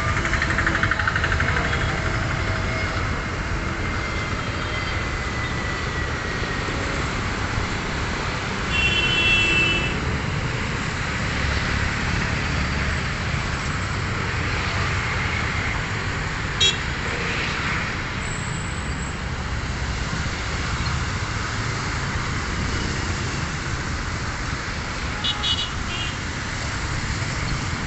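Jet airliner noise as an IndiGo Airbus A320-family jet comes in to land: a steady rush with a whine falling in pitch over the first few seconds, mixed with road traffic. A vehicle horn toots briefly about 9 seconds in and again with short toots near the end.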